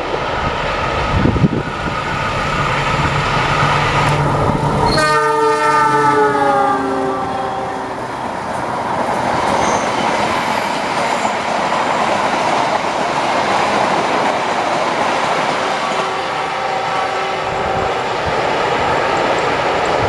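A passing diesel-electric locomotive: its engine rumbles as it approaches, then its multi-tone horn sounds for about three seconds, starting about five seconds in, its pitch sliding down as it goes by. The passenger cars then run past with a steady rush and clatter of wheels on the rails.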